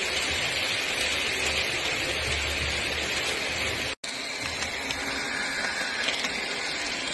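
Model electric trains running along the layout's track: a steady rolling noise of wheels on rails and small motors, broken by a split-second dropout about four seconds in.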